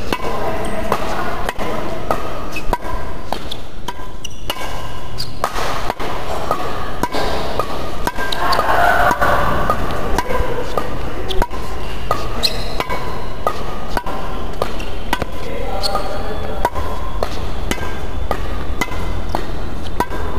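Badminton rallies: a shuttlecock struck sharply back and forth with rackets, among them a Pro Ace Sweetspot 950 strung with Yonex BG65, with hits coming irregularly, often less than a second apart.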